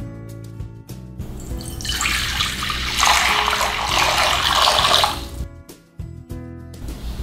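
Water poured from a plastic jug splashing into a glass mixing bowl. It starts about a second and a half in, grows louder, and stops about five seconds in.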